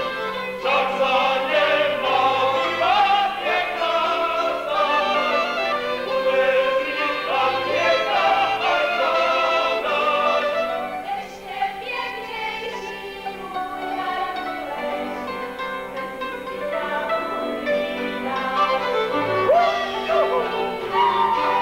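Folk music: singing voices with fiddles and a string band accompanying.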